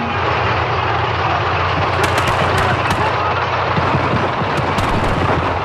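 Armoured personnel carrier's engine running amid a dense din, with a run of sharp cracks of gunfire about two seconds in and a few more near the end.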